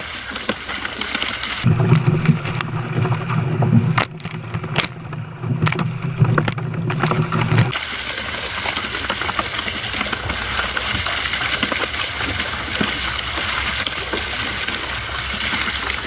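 Water gushing and splashing as a stocking truck's tank empties trout into the lake. From about two seconds in to about eight, a loud low rumble drowns out the higher sound before the steady rush of water returns.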